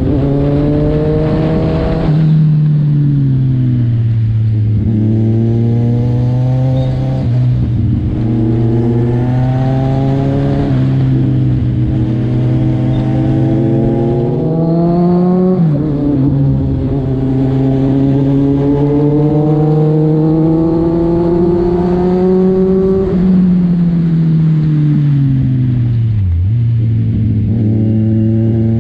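Kawasaki Z1000 inline-four engine and exhaust, heard from the rider's seat while under way. The engine note climbs under throttle and drops back several times as the bike shifts and rolls off, with a deep drop near the end before it climbs again.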